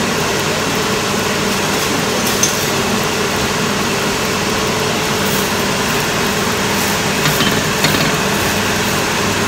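A steady mechanical whirring hum, with a few light scrapes of a metal spatula against the cast-iron griddle near the end.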